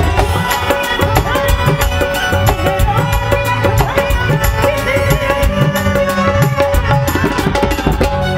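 Live Punjabi folk-style music: a fast, even hand-drum rhythm under a held harmonium tone and melody.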